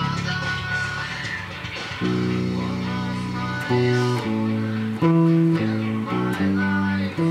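Electric bass guitar played with the fingers. After a less distinct first two seconds it plays a riff of held low notes: one long note, then notes changing about every half second.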